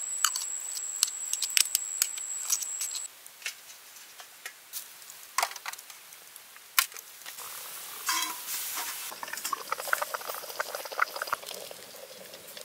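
Small sharp clicks and clinks as a spoon scrapes stuffing into snail shells and the stuffed shells are set down on a metal steamer plate, with leaves rustling near the end. A steady high-pitched whine runs under the first three seconds and then stops.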